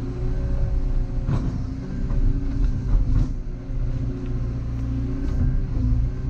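Volvo EC140EL excavator's diesel engine and hydraulics running steadily as the machine grabs a tree stump, with sharp cracks or knocks about a second and a half in and again near three seconds.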